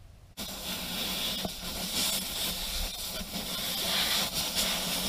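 Air hissing out of a truck tire through its open valve stem, starting suddenly about half a second in as the valve core comes out, and growing slightly louder: the tire is being deflated.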